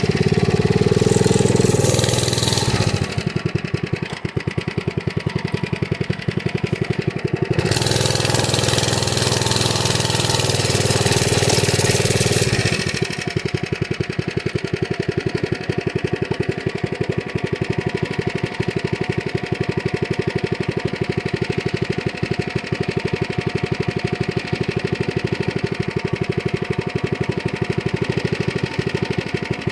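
Mini bike's small engine running: it gets louder and noisier twice, under throttle as it is ridden, then from a little before halfway it settles into a steady idle.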